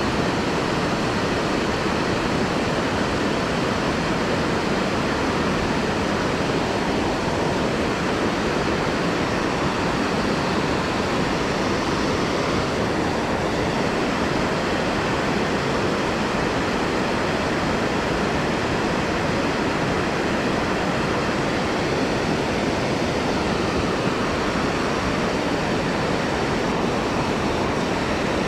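Water pouring over a low-head dam and churning in whitewater below it: a steady, unbroken rush.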